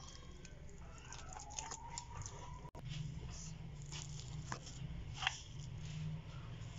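Silicone spatula stirring a thick, wet spice paste in a steel bowl: irregular squelches and scrapes with sharp clicks against the bowl, over a low steady hum. The sound drops out for an instant a little before halfway.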